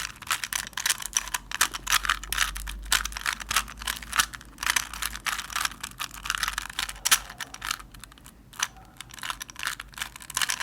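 Rubik's cube being turned by hand: rapid, irregular plastic clicks and clatter as the layers are twisted, with short pauses, one near the middle and one towards the end.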